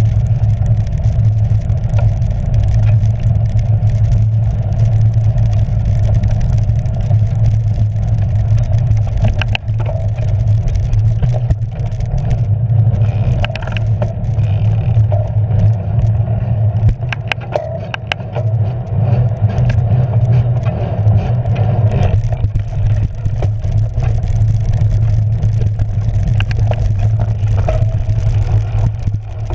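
Steady rumble and wind noise from a camera mounted on a cyclocross bike's handlebars as the bike rides over rough dirt, leaves and grass. Scattered knocks and rattles come from bumps in the ground.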